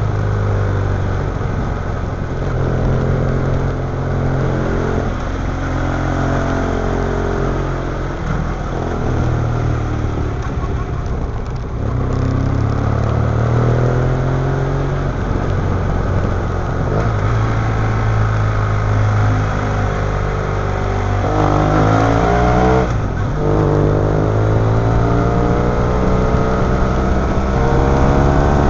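BMW F800ST parallel-twin motorcycle engine recorded on the moving bike, pulling along a winding road. Its pitch rises and falls repeatedly as the throttle opens and closes through the gears.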